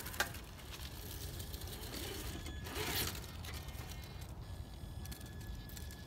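Traxxas TRX-4 RC crawler's electric motor and geared drivetrain whining steadily as it crawls over rock, with a sharp click just after the start and a short noisy burst about three seconds in.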